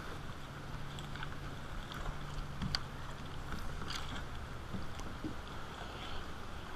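Small waves lapping against a plastic fishing kayak in the wind, with a few light clicks from handling a spinning rod and reel during a lure retrieve.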